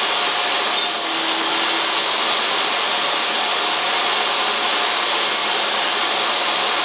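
Benchtop table saw running steadily as a wooden strip is fed along the fence.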